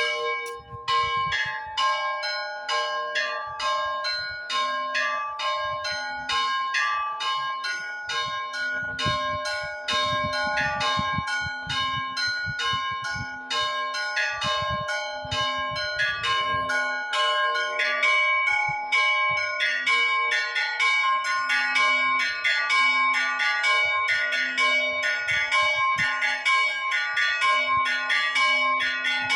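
Church bells ringing in a fast, continuous peal: several small higher bells struck rapidly, several strokes a second, over a lower bell that sounds about every second and a half.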